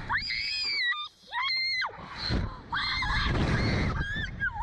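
A young woman screaming on a slingshot ride: about four short, high-pitched screams, each rising and falling, with wind rushing over the microphone between them.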